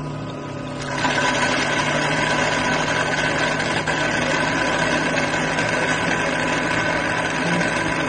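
Xiaomi Mijia Omni robot vacuum washing its mops in the self-cleaning base station: a steady machine whir over a hiss, with a couple of held tones, that steps up louder about a second in and then runs evenly.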